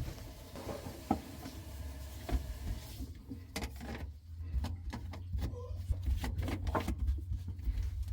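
Sink drain P-trap pieces being fitted back together by hand: scattered small clicks and knocks, more frequent from about three seconds in, over a steady low hum.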